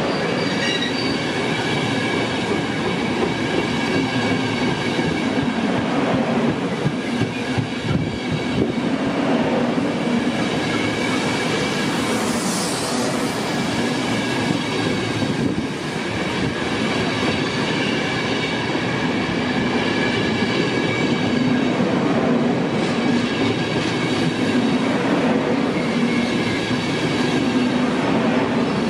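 Passenger coaches of a long Trenitalia express train rolling past on the rails: a steady rumble of wheels on track with a thin, steady high-pitched squeal over it.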